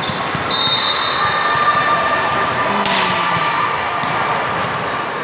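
Echoing din of a busy volleyball gymnasium: volleyballs thudding on the hardwood floor and players' voices, with a sharper thud about three seconds in. A brief high-pitched tone sounds about half a second in.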